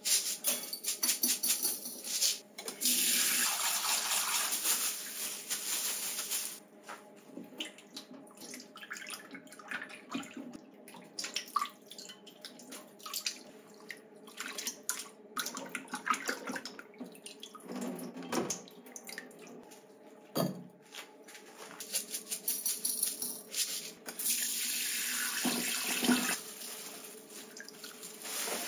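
Kitchen tap running into a stainless steel sink in two spells, a few seconds in and again near the end. In between come splashing, clinks of bowls and a strainer, and hands rinsing raw oysters and seaweed in a bowl of water.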